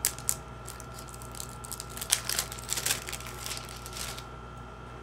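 Cosmetics packaging being handled and unwrapped: a couple of sharp clicks near the start, then a burst of crinkling and rustling about two seconds in as an eyeshadow palette is opened.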